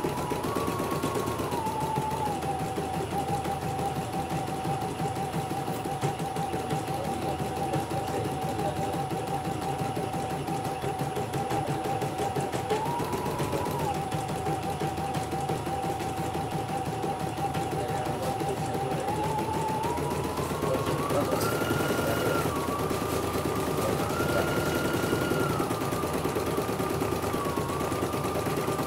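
CNY portable embroidery machine stitching a design: a fast, even chatter of needle strokes over a motor whine. The whine steps up in pitch briefly twice and runs higher in the last third. It is a test stitch-out after a repair.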